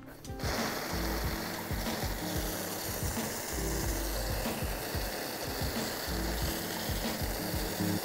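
A steady hiss starting about half a second in, over quiet background music.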